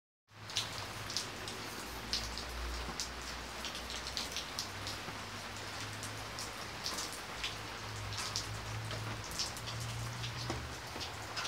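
Steady rain falling and dripping, an even hiss with many close drops ticking through it, fading in just after the start over a low steady hum.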